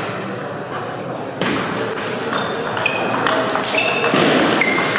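Table tennis rally: the ball clicking off bats and table about twice a second, each hit with a short high ping, starting about a second and a half in.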